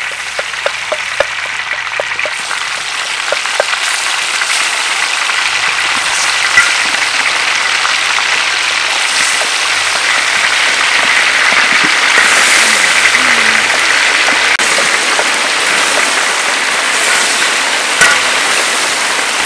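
Pieces of pork rib deep-frying in hot oil in a large wok: a loud, dense, steady sizzling and crackling that builds up over the first few seconds.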